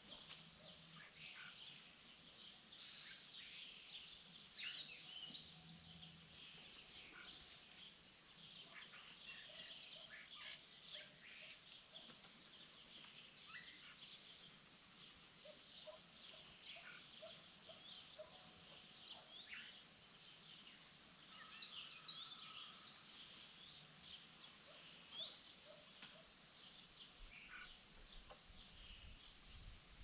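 Faint forest ambience: scattered songbird chirps and trills over a cricket chirping at a steady, even pace.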